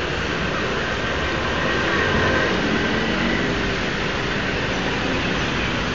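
Steady city street traffic noise: a continuous rumble and hiss of passing vehicles, a little louder about two seconds in.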